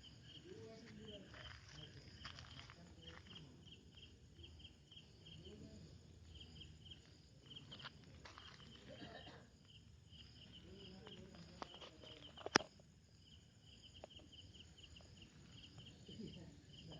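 Crickets chirping faintly in a steady run of short, rapid chirps, with one sharp click about three-quarters of the way through.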